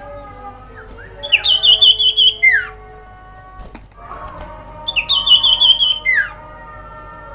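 A sirpu (common iora, cipoh) singing its fast jingling trill twice: a rapid run of high repeated notes, each burst ending in a quick falling note, over softer steady whistles in the background.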